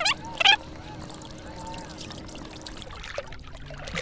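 Water splashing and trickling around a large redfish held by its jaw at the surface, with two short sharp splashes in the first half-second, then steady sloshing.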